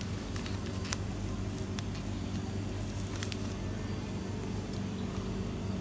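Steady low electrical hum of a small grocery shop's room tone, with a few light clicks scattered through it.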